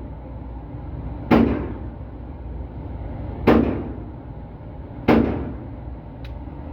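Three gunshots at a shooting range, about two seconds apart, each a sharp report with an echoing tail.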